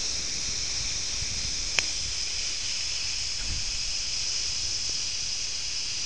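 Steady high-pitched hiss with faint low crackles and one sharp click a little under two seconds in: an old-film surface-noise effect laid over a countdown leader.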